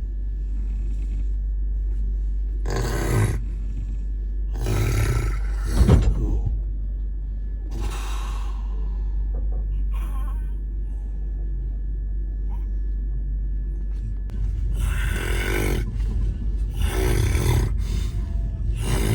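A person snoring in a train sleeper berth: about eight rough, ragged snores, irregularly spaced, with a quieter stretch in the middle, over the steady low rumble of the moving train.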